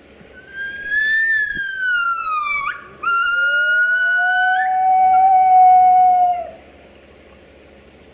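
Gibbon calls: long, clear whistling notes that glide in pitch. The first rises and then falls, a sudden upward swoop comes about two and a half seconds in, and then two held notes sound at once, one high and one lower, until they stop about six and a half seconds in.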